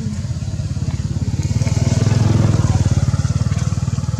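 A motor vehicle's engine running, getting louder about two seconds in and then slowly fading.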